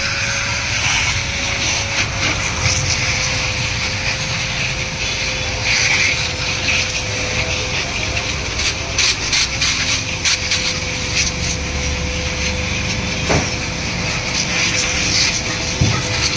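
Water spray hissing onto a car's engine bay in uneven bursts, over a steady machine hum that holds one constant tone.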